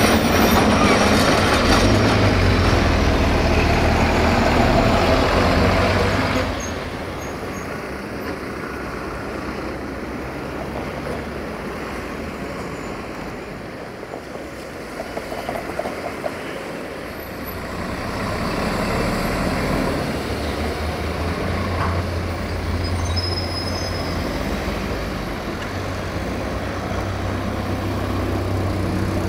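Tram running on street track: a loud rumble with a low motor hum as it passes close, cutting off suddenly about six seconds in to quieter street noise. Later another tram's low hum grows steadily as it approaches.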